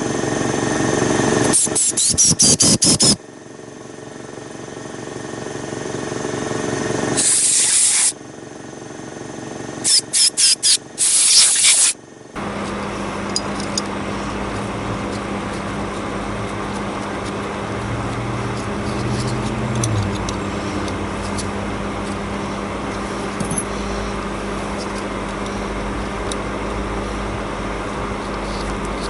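Short hissing blasts of pressurised spray, some in quick pulses, clearing a dirt-bike carburetor's pilot jet: three bursts in the first twelve seconds. After that a steady low hum.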